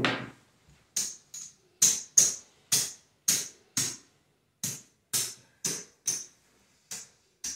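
Casino chips clacking as they are picked up and stacked off a craps layout: about fourteen sharp clicks, roughly two a second with a short gap midway. The chips are being taken down after a seven-out roll.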